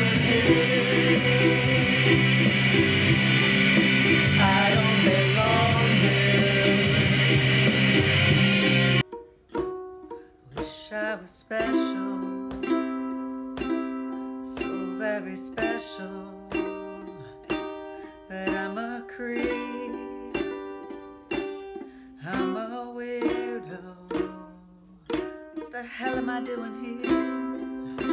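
Loud, dense music with singing cuts off abruptly about nine seconds in. It gives way to a solo ukulele, strummed in separate chords, with a woman singing over it.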